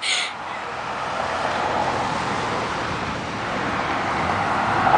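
Road traffic: cars driving past on a street, a steady rush of tyre and engine noise that grows louder toward the end as a vehicle approaches.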